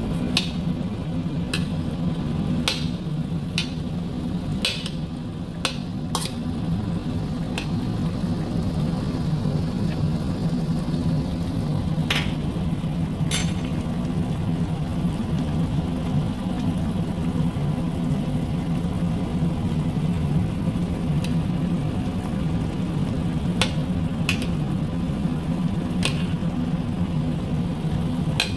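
Pork adobo simmering in a pot on the stove, its bubbling sauce giving scattered pops and spits over a steady low hum.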